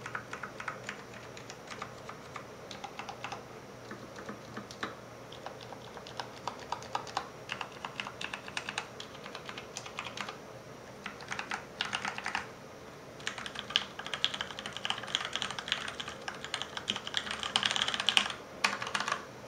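Typing on a Filco Majestouch 2 tenkeyless mechanical keyboard with Cherry MX Ergo Clear switches on 62g springs, a custom plate and thick PBT keycaps, heard through a camera microphone. The keys clack in irregular strokes, with fast dense flurries in the second half, and the typing stops just before the end.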